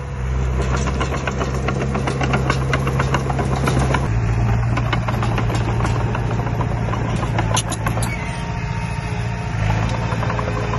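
Heavy construction machine's engine running steadily, its note shifting about four seconds in and again near the end, with frequent irregular clicks and clanks over it.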